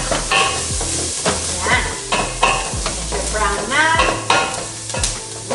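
Onions, garlic and green bell peppers sizzling as they sauté in olive oil and butter, stirred with a wooden spoon that scrapes the stainless steel pot in repeated strokes.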